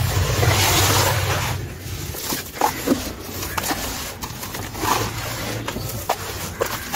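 Hands crumbling and sifting gritty sand-cement mix in a plastic tub, with a rushing hiss of grit pouring through the fingers at first, then softer rustling with scattered crunches and ticks of small lumps.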